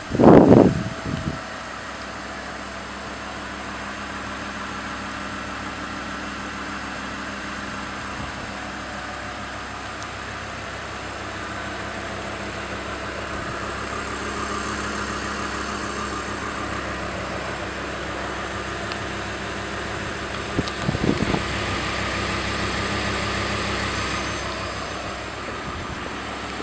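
Lamborghini Gallardo LP550-2's mid-mounted V10 idling steadily, with a short, loud rev near the start and a few smaller blips of throttle about twenty seconds in.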